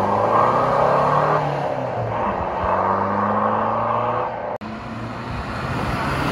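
Maruti Suzuki Baleno's four-cylinder diesel engine heard through a loud aftermarket exhaust as the car drives past and away. The sound breaks off suddenly about four and a half seconds in, then picks up again as the car comes back toward the microphone.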